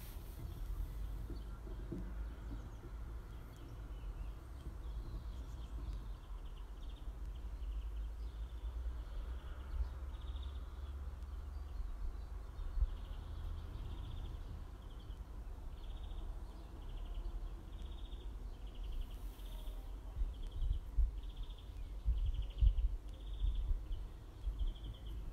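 Outdoor ambience with a low rumble on the microphone and a songbird calling. From about ten seconds in the bird repeats a short, high call roughly once a second.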